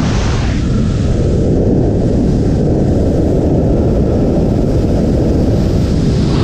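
Freefall wind blasting over a skydiving camera's microphone: a loud, steady low rumble.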